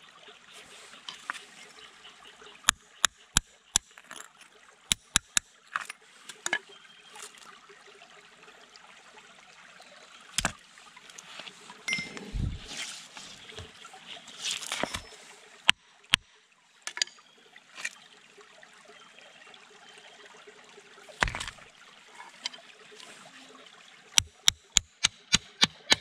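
Hammer striking a steel chisel to split a layered rock slab, sharp metallic taps coming in quick runs of several, with scraping of rock and pebbles as the pieces are shifted. A shallow stream trickles steadily over the stones underneath.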